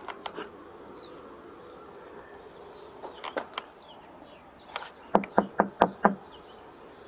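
Knuckles rapping on a car's side window, a quick run of about five knocks about five seconds in, after a few lighter taps. Faint bird chirps sit underneath.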